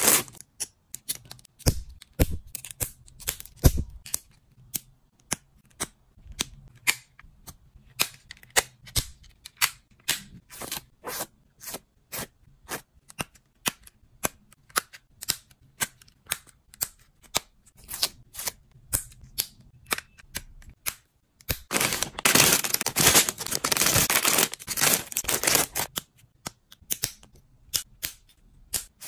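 Small plastic building bricks being clicked and pressed together by hand: a long series of sharp snaps, about one or two a second. Over a few seconds past the middle the clicks give way to a dense stretch of continuous rattling.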